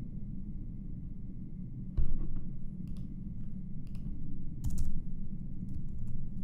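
Computer keyboard being typed on in short, scattered runs of keystrokes, the clicks irregular and a little louder near the end, over a steady low hum.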